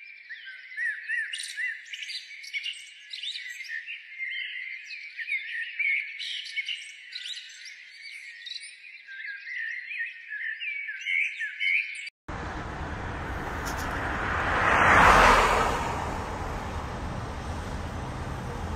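Small birds chirping, many short high chirps overlapping. About twelve seconds in it cuts abruptly to road traffic noise, with a vehicle passing that swells and fades around fifteen seconds in.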